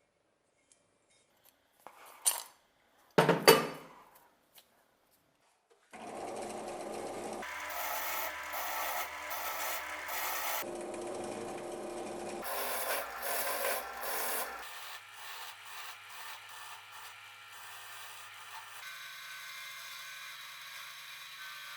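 Two sharp knocks of metal parts being handled, then steady scraping of a wire brush over rusty metal parts to clean off rust and dirt. The scraping comes in several short stretches that change abruptly.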